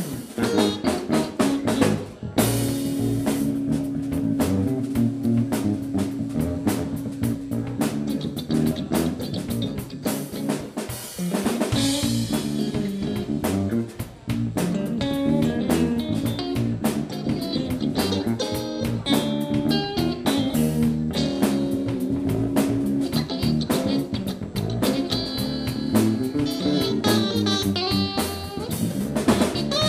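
Live instrumental funk-blues band: electric guitar, electric bass and drum kit playing together at a steady groove, with a long held note a couple of seconds in.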